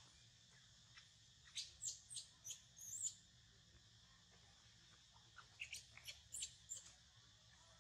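Baby macaque giving short, high-pitched squeaks in two quick runs, one about a second and a half in and another past the middle, the last squeak of the first run sliding in pitch.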